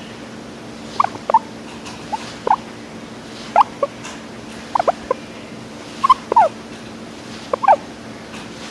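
Guinea pig making short, squeaky chirping calls, often in pairs or threes, about one burst a second.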